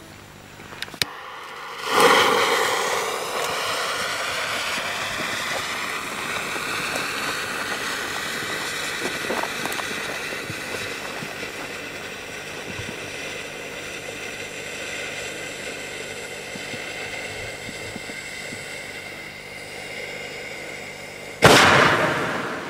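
A Class IV fireworks tube set in a bucket starts about two seconds in with a loud sudden hiss. It burns with a long steady hiss that slowly fades for nearly twenty seconds. Near the end a sharp bang throws a spray of stars into the sky.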